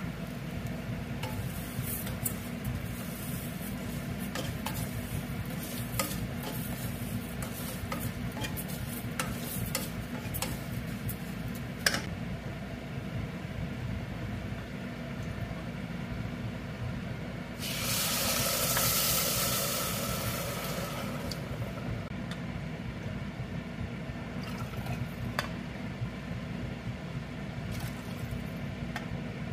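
Wooden spatula stirring and scraping roasting broken wheat and moong dal in a steel pressure cooker, with scattered light clicks. About 18 seconds in, water poured into the hot pan hisses and sizzles for about three seconds. A steady low hum runs underneath.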